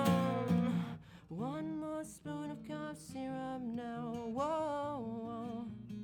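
A strummed acoustic guitar chord and a held sung note fade out in the first second. Then a male voice sings a wordless, drawn-out melody over soft, sustained acoustic guitar notes.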